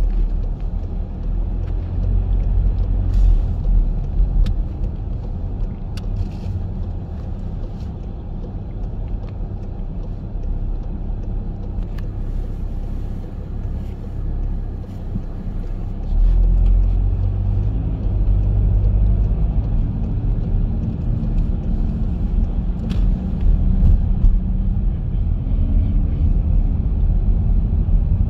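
Low, steady road rumble of a car's engine and tyres heard from inside the cabin while driving on snowy streets. It steps up in loudness about halfway through as the car picks up speed, with a few faint clicks.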